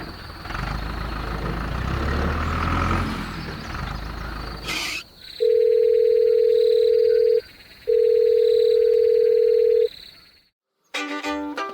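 A rumbling, noisy stretch for about five seconds, then two long steady electronic beeps at one mid pitch, each about two seconds, with a short gap between them. Music with plucked and bowed strings starts near the end.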